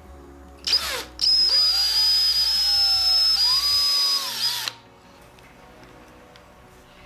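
Power drill triggered briefly, then running for about three and a half seconds as it bores into a small piece of ebony. Its motor whine dips in pitch a couple of times under load, then stops.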